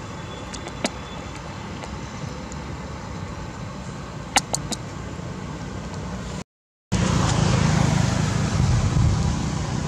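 Steady outdoor background noise with a low rumble. There are a few short sharp clicks about a second in and again a little before halfway. A brief dropout comes about two-thirds in, and after it the rumble is louder.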